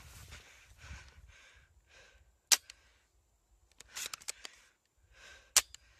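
Airsoft guns firing: two sharp, loud snaps about three seconds apart, with a quick cluster of smaller cracks between them. Soft rustling from moving through tall grass comes and goes underneath.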